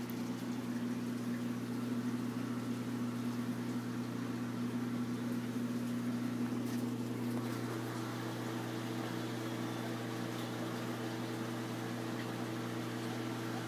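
Steady hum of aquarium pumps and filtration equipment running, with a faint wash of moving water.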